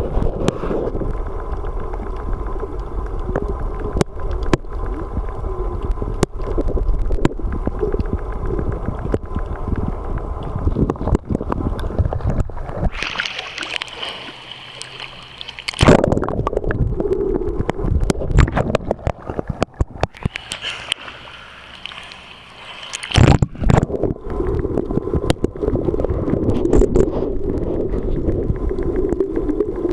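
Muffled underwater gurgling and rumble with frequent small clicks, picked up by a camera in a waterproof housing. Twice, about halfway through and again a few seconds later, the camera breaks the surface for a few seconds and the sound turns to a thinner hiss, with splashes as it goes in and out of the water.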